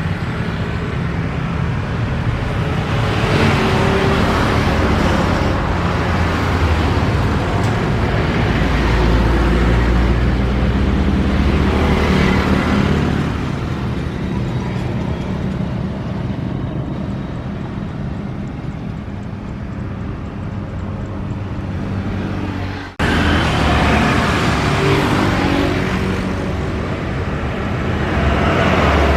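Steady road traffic, with vehicles passing one after another in a rumble that swells and fades several times. It is cut off abruptly about 23 seconds in and picks up again at once.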